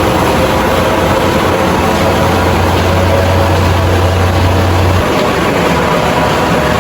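Rice milling machine running loudly and steadily on a trial run, with a low hum that drops out about five seconds in.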